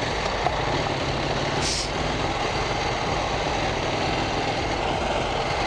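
KTM 790 Duke's parallel-twin engine running steadily under way, with wind rushing past.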